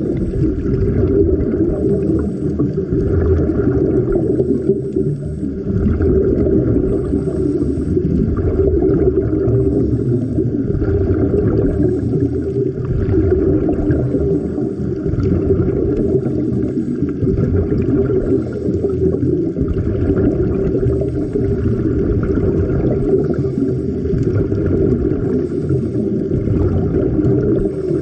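Steady, muffled underwater rumble of water moving around a camera's waterproof housing, deep and even with no clear events.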